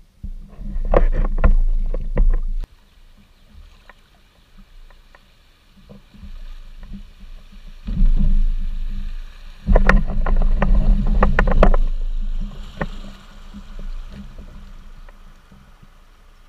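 Jackson Kayak Coosa HD fishing kayak being paddled through a shallow creek riffle. Its hull gives two spells of low rumbling with sharp clattering knocks, one about a second in and a longer one from about eight to twelve seconds, with quieter water and paddle sounds between.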